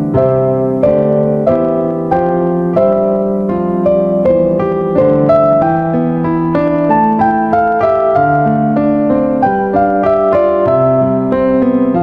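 Background piano music: a steady run of struck notes and chords, about two a second.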